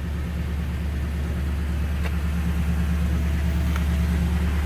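2018 Toyota Tundra's engine idling steadily, heard from inside the cab, with a couple of faint clicks.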